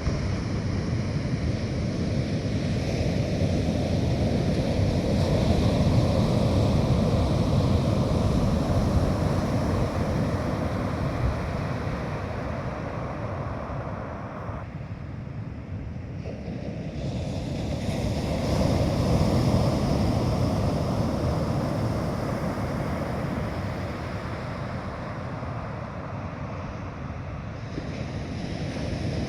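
Sea surf breaking on a beach, a steady wash of noise that swells up twice, once early in the stretch and again after the middle, with wind buffeting the microphone.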